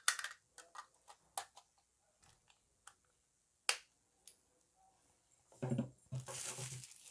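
Sharp plastic clicks and taps from the action camera and its packaging being handled, irregular and a few seconds apart, with a denser, louder stretch of handling noise near the end.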